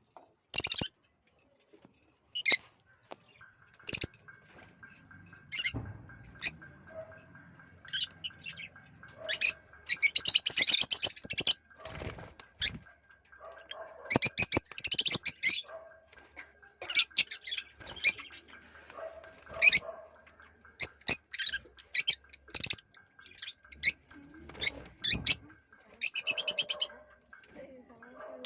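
Pet parrots calling: single sharp chirps and several bursts of rapid screechy chattering, with a faint steady whine underneath.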